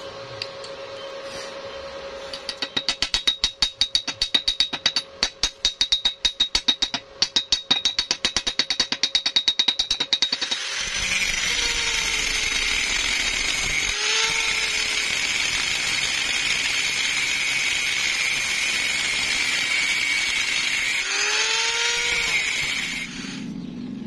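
Fast, sharp metallic tapping on steel, about five ringing knocks a second. Then an angle grinder with an abrasive disc runs against a welded steel hinge for about twelve seconds, its high whine sagging and recovering a couple of times as the disc bites.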